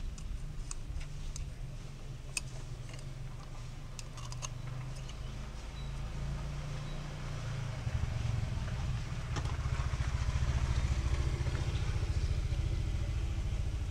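A motor vehicle engine running steadily in the background, growing louder from about eight seconds in, with a few light clicks in the first half.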